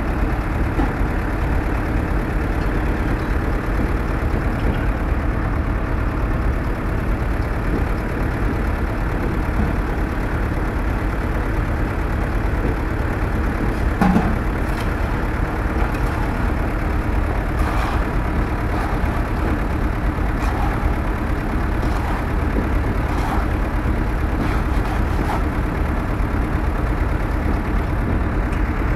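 Steady engine rumble, like a machine idling. A few light knocks come from the steel slump cone and scoop being handled, the loudest about halfway through.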